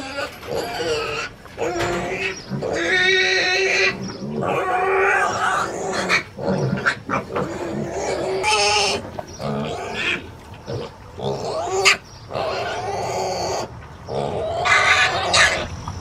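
Kunekune pigs grunting and squealing over and over, with several drawn-out pitched squeals of a second or more among shorter grunts.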